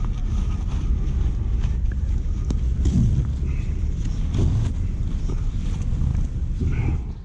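Rough, rubbing handling noise as the straps and nylon fabric of a chest-worn bag and jacket are pulled and adjusted against the microphone, with a few sharp clicks of buckles. It stops abruptly near the end.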